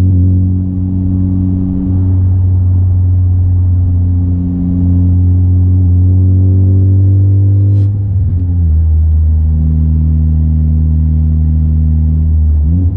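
Honda Civic Type R FK8's turbocharged 2.0-litre four-cylinder heard from inside the cabin through a J's Racing 70RS exhaust with RV6 front pipe, cruising with a steady low exhaust drone. About eight seconds in there is a brief click, and the pitch dips and climbs again; near the end it rises once more.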